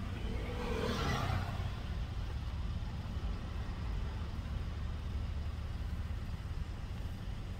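Steady low rumble of a taxi's engine and tyres heard from inside the cabin, with a brief louder rush of noise about a second in.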